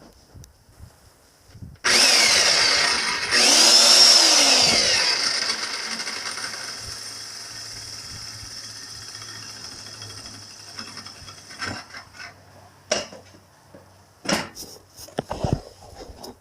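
A power tool starts suddenly, surges louder a moment later with its pitch sliding up and down, then winds down slowly over several seconds. A few separate knocks follow near the end.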